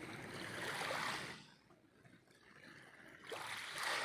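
Small waves of a calm sea washing in twice, each a swell of water noise lasting about a second.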